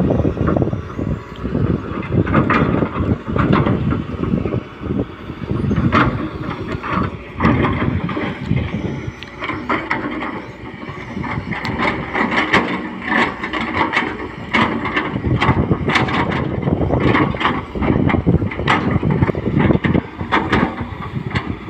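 Hydraulic excavator at work: the diesel engine runs under load, with many irregular clanks and knocks from the bucket and boom and occasional squeals.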